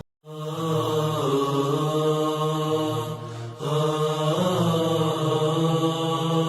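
Islamic naat ringtone: a chanted vocal melody over a steady low drone. It starts after a brief silence and dips briefly about three seconds in.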